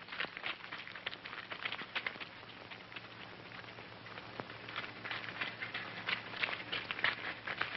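Footsteps crunching over rough, stony ground, sparse in the middle and quicker near the end, over a steady low hum.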